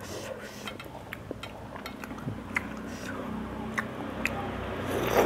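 Two people eating seblak with spoons from ceramic bowls: chewing, with scattered light clicks of spoons against the bowls. A low rumble of road traffic grows in the second half.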